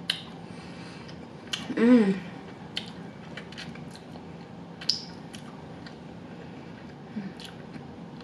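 Mouth sounds of eating barbecue baby back ribs by hand: scattered wet lip smacks and finger licking, with a short hummed "mm" about two seconds in.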